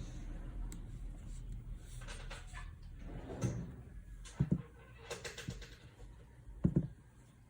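Soft short knocks on a craft tabletop, some in quick pairs, with light paper rustling between them, from hands at work on cardstock.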